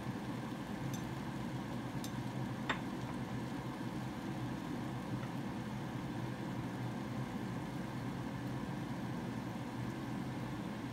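Kitchen exhaust fan running with a steady low hum. A few light clinks of a spoon on a bowl come about two to three seconds in.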